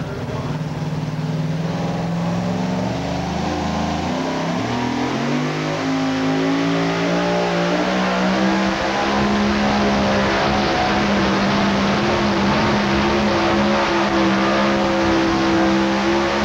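Supercharged engine of a pro-mod two-wheel-drive pulling truck under full load, dragging a weight-transfer sled. It runs at lower revs for the first few seconds, climbs between about four and eight seconds in, then holds steady at high revs.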